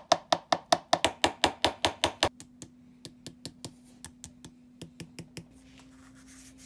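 Rapid light metal-on-metal tapping, about five taps a second, each with a short ring, on a seized piston ring of a Yamaha TT-R125 piston to work it free of its groove. About two seconds in the taps turn fainter and more spread out, and they stop shortly before the end.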